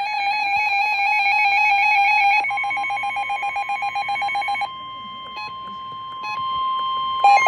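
Emergency alert tones ahead of a severe thunderstorm warning. A fast warbling electronic alarm is joined after about two seconds by a steady high tone, which then carries on alone and quieter, broken by two short beeps. Near the end a louder pulsing warble starts up again.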